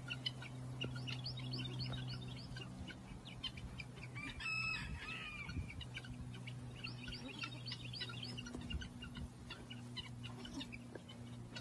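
Faint outdoor farmyard sound: small birds chirping throughout, with one pitched animal call about a second long near the middle, over a steady low hum.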